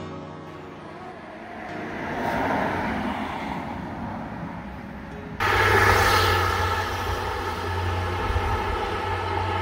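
Roadside vehicle noise. A passing vehicle swells and fades about two to three seconds in, then the sound jumps suddenly to a louder, steady engine hum.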